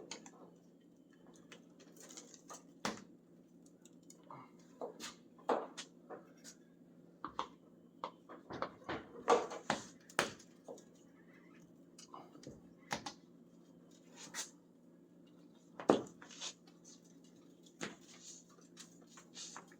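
Scattered light clicks, taps and scrapes of hand tools and parts being worked at the truck cab, irregular and of varied loudness, with a sharper knock about 16 seconds in, over a steady low hum.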